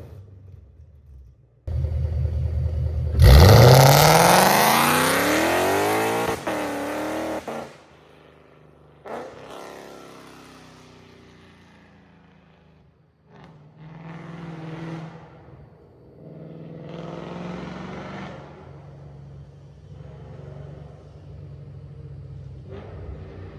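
Lexus RC F's 5.0-litre V8 breathing through PPE unequal-length headers, revved hard: the pitch rises sharply and holds for a few seconds, then falls away. A second sudden rev follows, then several shorter, quieter blips, recorded on a phone's microphone.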